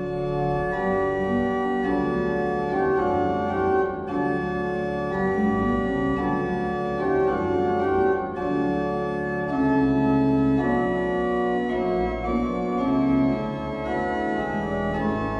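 Organ playing a slow piece in sustained chords, with held notes that change every second or so.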